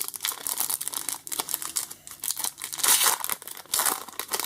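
Pokémon trading-card pack wrapper being crinkled and torn open by hand, a dense crackling rustle that is loudest about three seconds in and again near the end.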